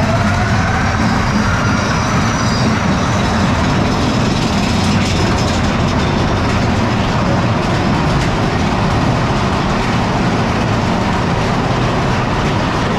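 Big Thunder Mountain Railroad mine-train coaster running through a dark tunnel: a steady rumble of wheels on track, with a faint wavering high squeal in the first couple of seconds.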